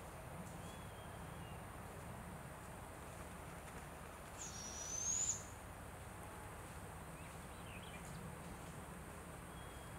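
A young barred owl gives one high, thin, screechy call about a second long, near the middle, sweeping sharply upward at its end: the begging call of a fledgling owlet asking its parents for food.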